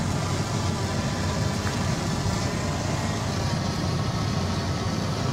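An engine running steadily at idle: a low, even drone with a faint hum over it.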